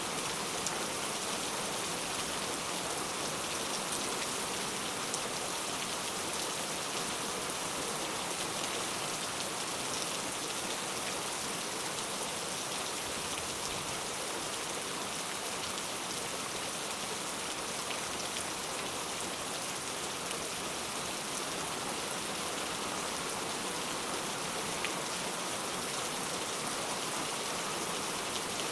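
Steady rain falling on a surface, an even hiss with a patter of small drop ticks.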